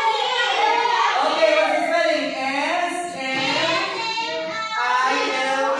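Children's voices singing together in unison.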